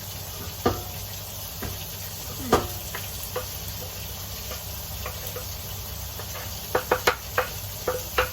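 Chopped bacon, carrot, celery and onion sizzling in a hot pan with a steady hiss. A utensil knocks against the pan a couple of times, then a quick run of knocks, about four a second, starts near the end as the pan is stirred.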